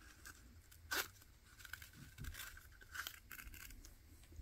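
Scissors cutting small rounded-corner patches out of a sheet of Tear-Aid Type A repair tape with its paper backing: several faint, short snips and rustles of the sheet, the clearest about a second in and again about three seconds in.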